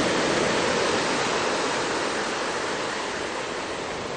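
Ocean surf, a steady rush of breaking waves, a little louder at the start and easing slightly.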